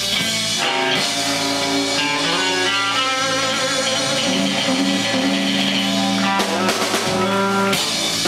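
Live blues-rock band playing electric guitars, bass and drum kit, with held chords and cymbal crashes about a second in and twice near the end. These are the final bars of the song.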